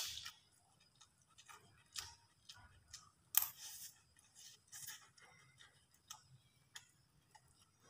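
Close-up eating sounds: a metal spoon clinking and scraping in a ceramic rice bowl, then soft chewing and mouth clicks, heard as scattered short sharp ticks about once a second.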